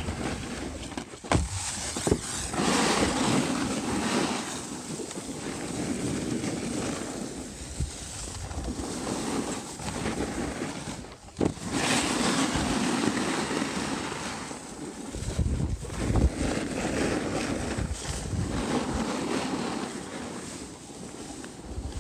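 Wind rushing over the microphone and skis sliding and scraping on packed snow during a downhill run. The noise swells and fades every few seconds with the turns, with a few sharp knocks along the way.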